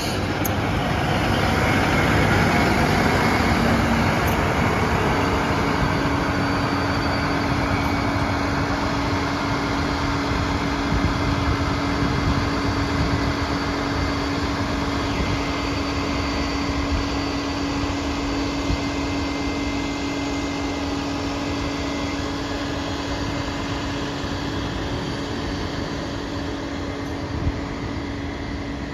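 Megabus double-decker coach's diesel engine running as the coach pulls away, loudest in the first few seconds and then slowly fading as it drives off. A steady hum comes in about five seconds in.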